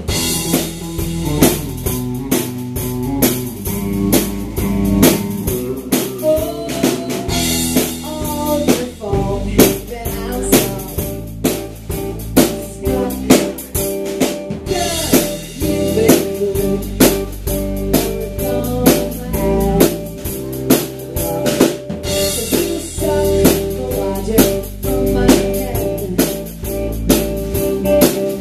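Live rock band playing: a drum kit beating a steady rhythm with sharp snare and bass drum hits under electric guitar.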